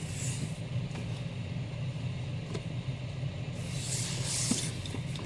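Comic books rustling and sliding against a cardboard shipping box as they are pulled out, briefly at the start and for longer around four seconds in, over a steady low background hum.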